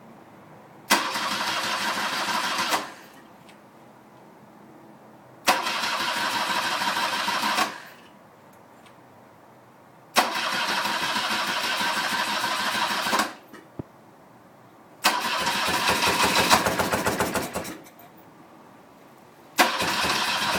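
BMW R65 flat-twin being cranked by its electric starter in five separate attempts of two to three seconds each, every attempt stopping abruptly without the engine catching, in keeping with a bike that is hard to start and running rough.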